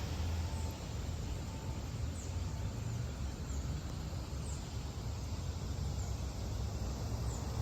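Outdoor ambience: a steady low rumble, with faint, very short high chirps sliding downward about once a second.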